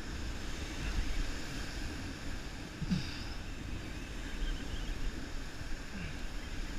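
Surf washing up the beach and wind buffeting the microphone, a steady rushing with a heavy low rumble. Two brief falling sounds stand out, about three seconds in and near the end.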